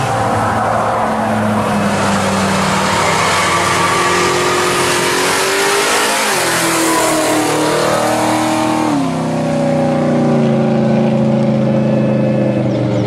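Red Plymouth muscle car's V8 accelerating past. The revs climb, then drop sharply about six seconds in and again about nine seconds in as it shifts up, and it settles into a steady run as it pulls away.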